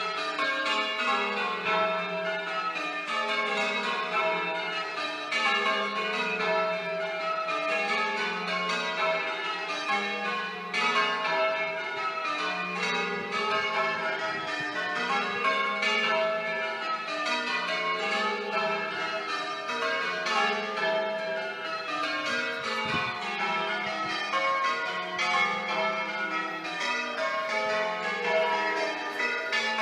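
Church tower bells rung full circle in a peal of change ringing. A continuous stream of bell strikes falls in descending rows, and the order shifts from row to row as the bells change places.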